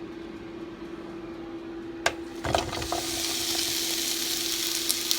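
Chopped peppers, onion and mushrooms going into hot olive oil in a frying pan: a clatter of pan and utensil about two seconds in, then a loud, steady sizzle from about three seconds in. A steady low hum runs underneath.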